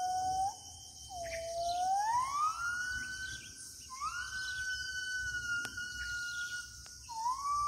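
Wild gibbons calling: a series of long, pure, whistle-like hoots, each sliding up in pitch and then held for two to three seconds, with a new hoot starting about every three seconds. A steady high insect drone runs underneath.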